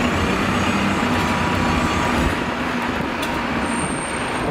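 Mercedes-Benz Citaro single-decker bus pulling away and driving past close by, its diesel engine running steadily under load, with a thin high whistle near the end.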